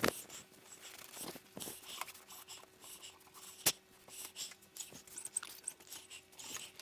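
Cloth wiping and rubbing over a 3D printer's frame and wheels, with scattered small clicks and rustles and one sharp click about halfway through.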